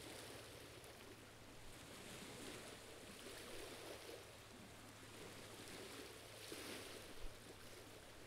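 Near silence: a faint, even hiss with slight swells.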